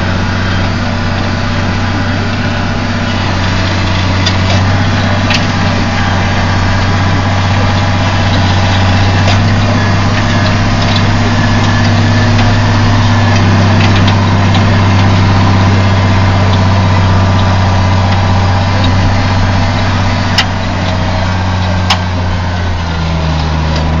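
Tractor engine running steadily, heard from inside the cab while it tows a round-bale feeder. Its note drops slightly near the end, and there are two sharp knocks about a second and a half apart shortly before that.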